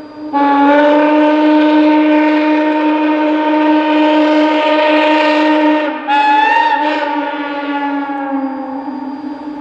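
Steam locomotive whistle blowing long held blasts. It swells louder just after the start, breaks briefly about six seconds in, then sounds again and slowly fades toward the end.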